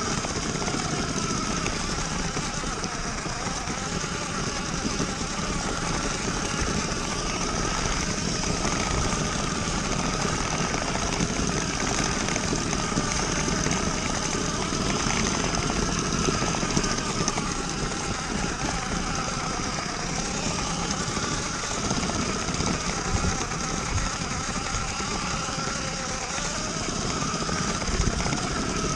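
Small electric motor of a Lego toy train running steadily, its whine wavering in pitch over a continuous rattle.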